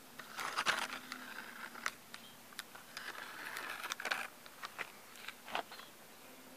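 A wooden stick scraped and dragged over dry dirt ground in two short scratchy spells, with scattered sharp clicks and taps as it is knocked about.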